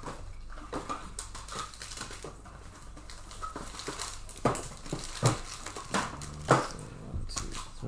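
Trading-card packs and cards being handled: plastic wrappers crinkle and rustle, with scattered clicks and a few sharper taps in the second half.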